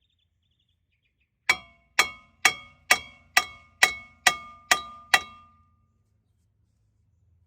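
Hammer striking a stuck rear brake rotor on a 2000 Saleen Mustang to knock it loose from the hub: nine ringing metal clangs, about two a second.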